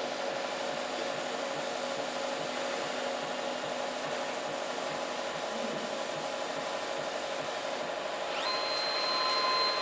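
Pattern cutting and plotting machine running with a steady whir. A little after eight seconds a motor whine rises in pitch and holds, slightly louder.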